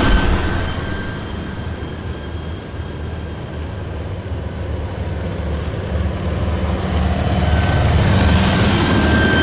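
Heavy military vehicles passing one after another: engines rumbling, with a steady high whine over the top. One vehicle passes and fades in the first couple of seconds, then the next comes up and is loudest near the end.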